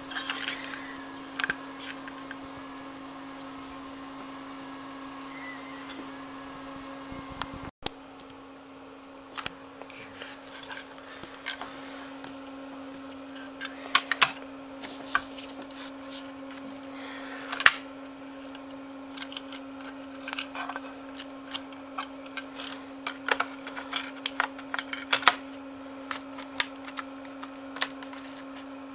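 Scattered light clicks and taps, sparse at first and coming thicker in the second half, over a steady low hum.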